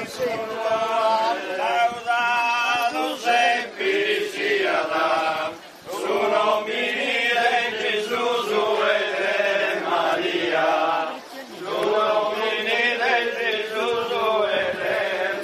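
A group of voices chanting a religious hymn in long sung phrases, with brief breaks for breath about six seconds in and about eleven seconds in.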